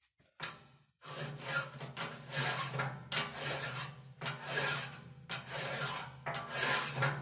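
Hand file rasping on a welded steel corner of a chiminea body, about six long strokes roughly one a second, starting about a second in. The file is cutting the inside corner square after the weld has been ground off.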